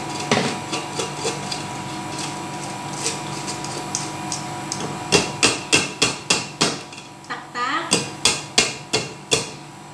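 Metal-on-metal knocking of a stainless steel sieve over a steel stockpot, struck with a spoon: quick sharp taps with a short ring, about three a second, in two runs in the second half. The tapping works blended tomato sauce through the mesh, leaving the skins and seeds behind.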